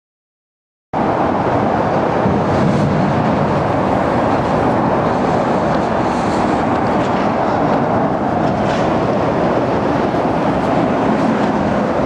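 Steady traffic noise from an elevated expressway, cutting in abruptly about a second in after silence.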